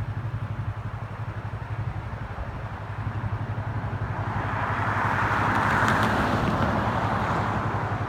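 A vehicle engine idling with a steady, rapid low pulse. A rushing noise swells from about four seconds in, peaks around six seconds and fades again.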